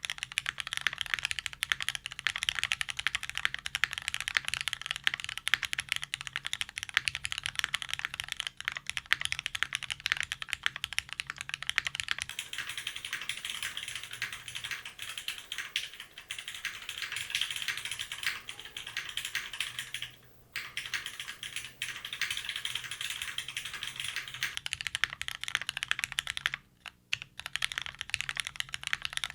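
Continuous fast typing on a custom tenkeyless mechanical keyboard with lubed Cherry MX Black linear switches in an aluminum plate, gasket-style gummy O-ring mount and GMK doubleshot ABS keycaps: a dense stream of key clacks. It stops briefly about twenty and twenty-seven seconds in, and the tone changes between about twelve and twenty-five seconds in.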